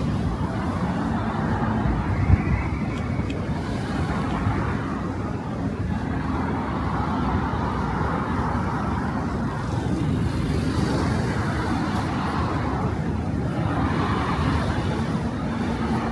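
Steady city street traffic: cars running past on the road, with a short thump about two seconds in.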